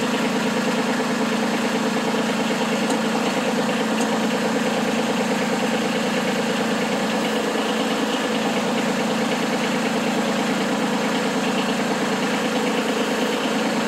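Kubota B2301 compact tractor's three-cylinder diesel engine idling steadily.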